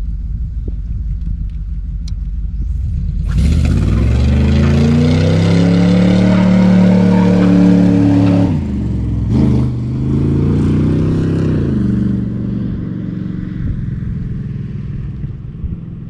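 Hot rod's engine idling with a low pulsing rumble, then revving hard about three seconds in. The pitch rises, dips briefly near the middle, climbs again and then fades away.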